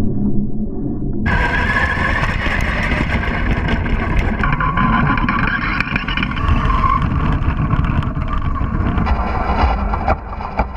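Tamiya Sand Scorcher radio-controlled buggy driving over grass, heard through a camera mounted on the car. A whine from the electric motor and gears shifts in pitch with the throttle, over a low rumble of the wheels and chassis bouncing across the lawn. The sound turns brighter and fuller about a second in.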